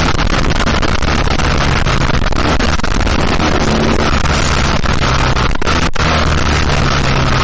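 Heavy wind buffeting on a motorcycle-mounted microphone at road speed, over the steady running of the bike's BMW R1200GS flat-twin engine. The sound drops out briefly about six seconds in.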